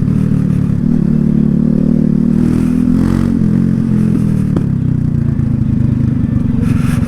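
Loncin LX250-12C motorcycle engine and exhaust running under way at steady revs. About five seconds in, the note turns into a choppier, pulsing beat.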